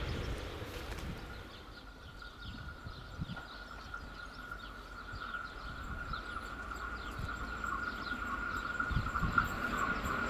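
A locomotive-hauled train approaching from the distance, a steady high whine growing louder as it nears, over a low rumble. Birds chirp repeatedly above it.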